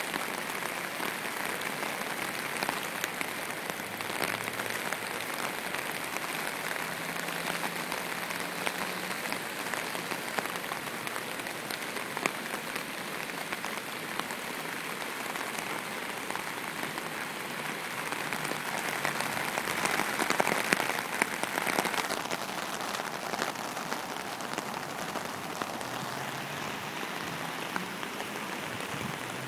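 Rain falling: a steady hiss peppered with the patter of drops, swelling louder for a couple of seconds about twenty seconds in.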